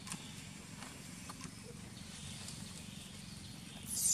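Faint rustles and small clicks over a low steady background. Near the end a macaque starts a loud, shrill scream that falls in pitch.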